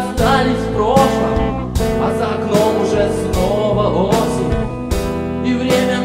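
Music: a song with a steady beat, sustained chords and a gliding melody line.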